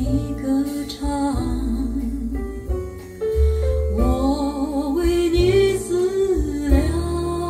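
Recorded music played over a pair of Totem Arro floor-standing speakers and heard in the room: a singing voice holds long notes with vibrato over piano accompaniment and strong, deep bass.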